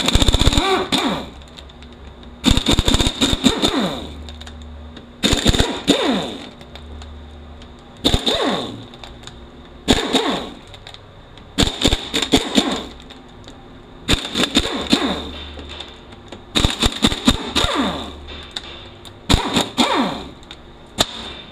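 Handheld impact wrench running off the T40 Torx bolts of a 4F27E automatic transaxle's back cover. There are about nine short bursts, one every two to three seconds, each a rapid rattle of hammering blows with a whine that falls as the tool spins down.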